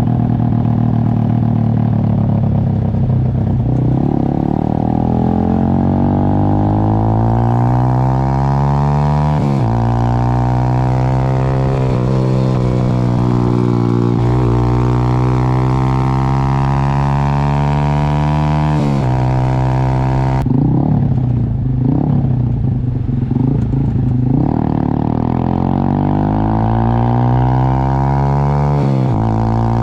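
Motorcycle engine running under way, its pitch climbing slowly as it pulls and then dropping at gear changes about a third of the way in, two-thirds in and near the end. A rougher, noisier stretch comes a little after two-thirds in.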